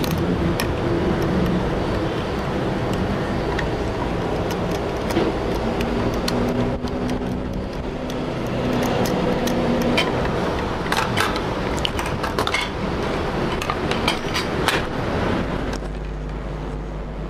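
Steady background noise, with scattered light clicks and taps from multimeter probe tips and fingers handling a motherboard, most of them in a cluster in the second half.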